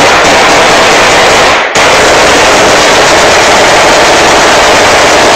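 Rifles fired in rapid, unbroken automatic bursts in celebration at a wedding. The fire is very loud and continuous, with a brief break about a second and a half in.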